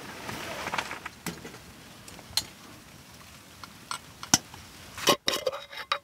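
Flip-top lighter and brass candle lantern being handled: a soft hiss of the lighter flame at first, then scattered small metallic clicks and taps, the loudest cluster of them near the end.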